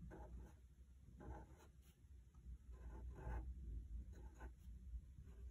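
Sharpie marker tip drawing short, faint, irregular strokes on a linoleum block, going over the pencil lines of a drawing.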